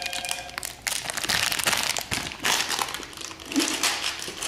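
Thin plastic hardware bags from a ceiling fan kit being handled and opened, crinkling irregularly in quick crackles.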